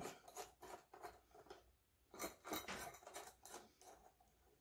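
Faint, irregular small metal clicks and scrapes of hand-held hardware, a washer and bolt being fitted by hand, with a short pause partway through.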